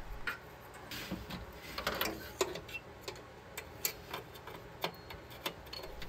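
Light, scattered clicks and taps as a replacement gas-furnace igniter on its metal mounting plate is handled and positioned in the furnace's sheet-metal burner compartment.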